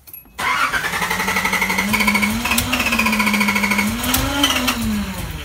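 Nissan 300ZX (Z31) V6 engine being cranked over by its starter motor without firing: a steady starter whine over the fast, even rhythm of the engine turning over, rising in pitch twice before winding down near the end. The engine fails to start.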